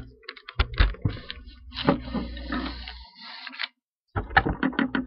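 Rummaging and handling noise close to the microphone: a string of clicks, knocks and scrapes over a low rumble, a brief pause, then more clicking.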